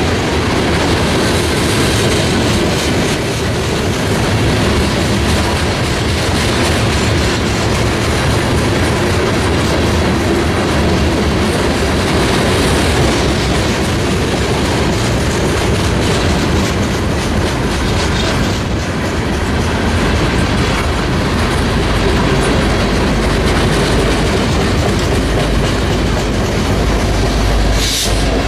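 Freight train cars, covered hoppers then boxcars, rolling past at speed: a steady rumble and clatter of steel wheels on the rails. A deeper low drone builds over the last several seconds as the mid-train diesel locomotives approach. A brief high-pitched wheel squeal comes near the end.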